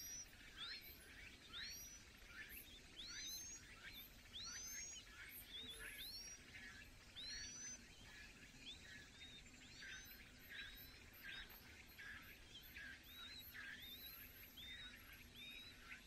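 Faint, high chirps of Chinese hwamei nestlings begging, repeated a little more than once a second. Each call is a quick rising sweep with a hook at the top, and the calls sit somewhat lower in pitch after about halfway.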